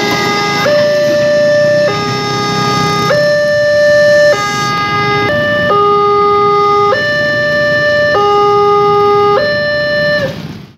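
Electronic level-crossing warning alarm on a Wantech crossing signal, sounding a loud two-tone call that alternates between a higher and a lower note about every second. It cuts off near the end.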